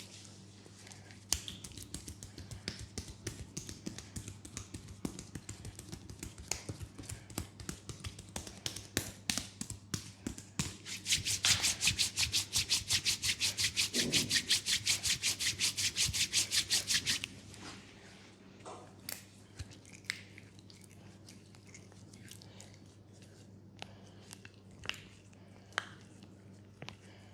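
Hands massaging a leg: skin rubbing with scattered short strokes. A fast, even run of rhythmic strokes, about seven or eight a second, starts about eleven seconds in and lasts some six seconds before stopping abruptly. A faint low hum runs underneath.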